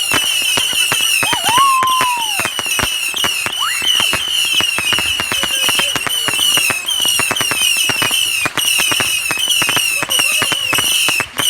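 Fireworks going off: a rapid, irregular run of sharp pops and crackles, with a high chirping sound repeating about twice a second behind it. A whistle glides down in pitch about a second and a half in, and another rises near four seconds.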